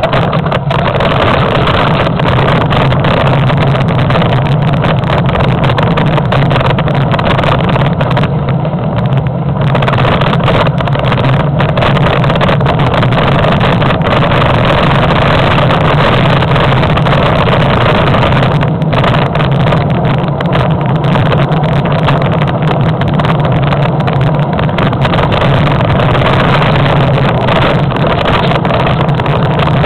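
Downhill mountain bike ridden fast over a rough dirt trail: a loud, steady rush of wind on the microphone with constant rattle and rumble from the bike.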